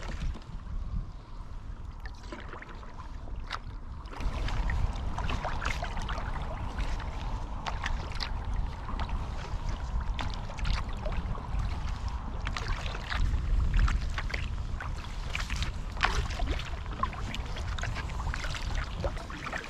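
Sea kayak being paddled on choppy water: the carbon paddle blades dip and splash and water drips and laps against the hull in many small irregular splashes. Wind rumbles on the microphone, louder from about four seconds in.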